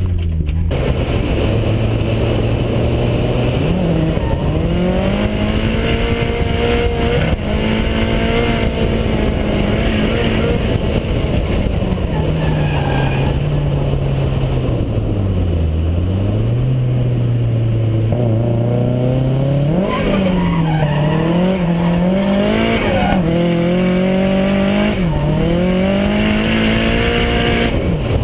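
Nissan 180SX engine driven hard in drift runs, its pitch repeatedly falling and climbing as the throttle is lifted and reapplied, with tyres skidding on the track.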